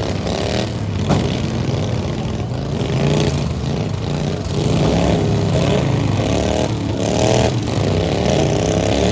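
Several derby lawn mowers' small single-cylinder engines revving up and down at once, overlapping and uneven, with a sharp knock about a second in and some clatter and scraping of mowers hitting each other.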